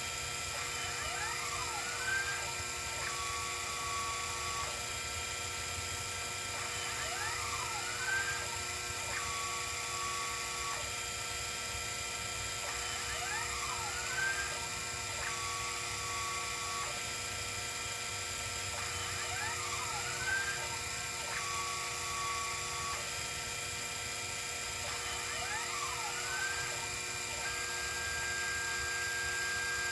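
Sherline 5000 CNC mill running a cutting program: the spindle motor whines steadily while the stepper motors whine in quick rising and falling pitch sweeps as the axes speed up and slow down. The sweeps come in a cycle that repeats about every six seconds.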